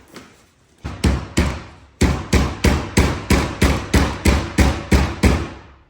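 A hammer striking repeatedly to knock a stuck rear spoiler loose. There are a few blows about a second in, then a steady run of about a dozen blows at roughly three a second.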